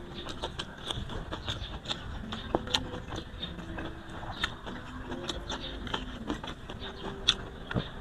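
Close-miked eating sounds of grilled carp eaten by hand: chewing and lip smacking, with many small wet clicks scattered throughout.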